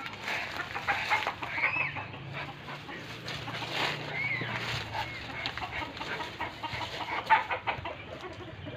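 Chickens clucking with a few short calls, over rustling and crackling footsteps in dry grass and dead leaves.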